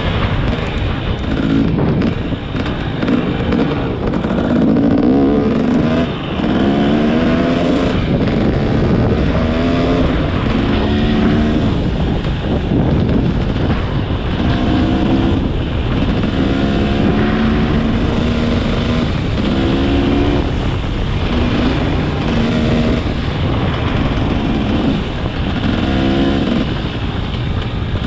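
Motorcycle engine revving again and again, its pitch climbing and dropping every second or two over a steady rushing noise.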